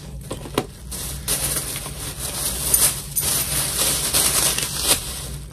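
Rustling and crinkling of packaging as a purchased item is handled, with a few sharp clicks, over a steady low hum.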